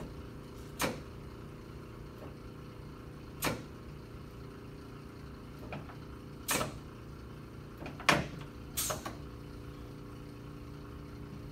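A steady low mechanical hum with several separate sharp knocks and clacks spread through it, about five in all, and a louder knock right at the end.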